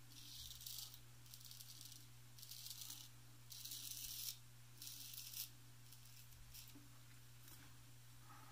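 A straight razor, a 7/8 full-hollow Wade & Butcher Celebrated, scraping through lathered stubble: a run of short, crisp strokes under a second each. The strokes are louder in the first half and fainter later on.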